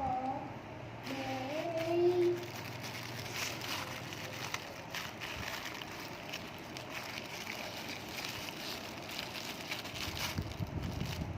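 iRobot Roomba robot vacuum running: a steady noise with scattered clicks and knocks, and a voice briefly at the start.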